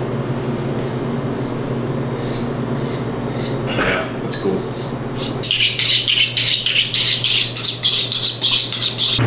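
Butcher's knife being honed on a sharpening steel: a few slower strokes, then from a little past halfway a quick, even run of metal-on-metal strokes, about five a second. A steady low hum underneath.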